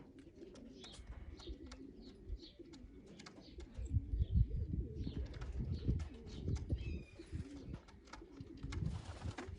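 Racing pigeons cooing in a wavering, low, repeated way, with scattered light clicks and a few duller low knocks around the middle.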